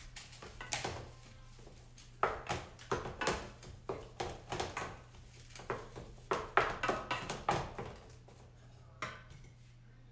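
Wooden spatula stirring and scraping ground meat in a frying pan, in irregular runs of quick strokes with short pauses between. A steady low hum runs underneath.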